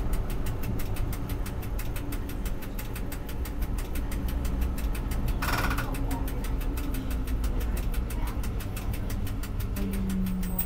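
Tram running along street track, heard from the driver's cab: a steady low rumble with a rapid, even ticking throughout. A brief higher-pitched sound comes about five and a half seconds in.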